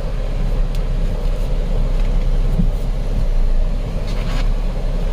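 A 2.7-litre V6 car engine idling steadily, a continuous low hum, with a few faint light knocks.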